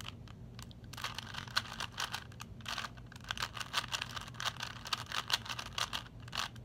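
A 3x3 Rubik's brand puzzle cube being turned rapidly by hand: quick, irregular runs of plastic clicks as the layers snap round, during the final last-layer moves of a speed solve.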